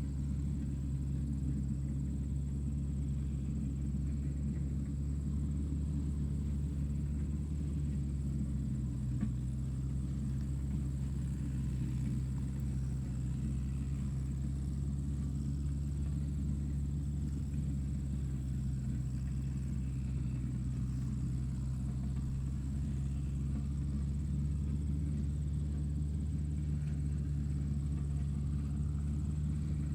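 Tractor engine running steadily at a constant speed: an even, low rumble with no change in pitch or level.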